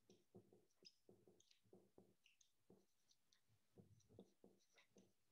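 Near silence, broken by faint scattered clicks and scratches of a pen or chalk writing out a formula.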